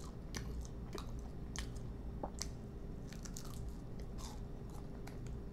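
Close-up chewing and biting into a fried lemon pepper chicken wing: many small irregular crunches and mouth clicks over a faint steady low hum.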